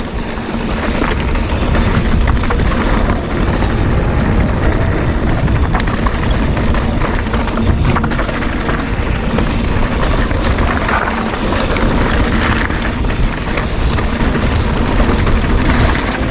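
Mountain bike riding fast down a rough trail: steady wind buffeting on the ride camera's microphone, with tyre noise and constant clattering from the bike over the bumps.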